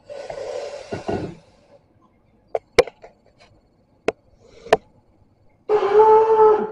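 A man lets out a loud, held cry on coming up from a face plunge in a bowl of ice water, near the end. Before it, a breathy rush of noise in the first second or so and several sharp knocks against the steel bowls or stone counter.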